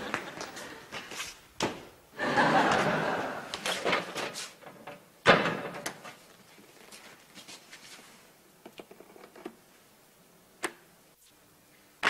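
Sitcom audience laughter, then sharp knocks and a loud slam-like thud about five seconds in, followed by quieter scuffing and scattered clicks.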